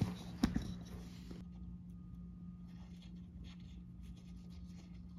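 Fingers working a knot out of an aluminum mini blind's string: light rubbing and rustling of cord against the slats, with a couple of small clicks in the first half second, over a faint steady hum.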